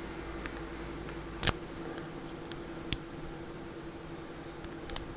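Small metallic clicks of a lock pick being zipped out over the pins of a Master Lock M5 padlock under tension, with two sharper clicks about a second and a half apart and a few lighter ticks.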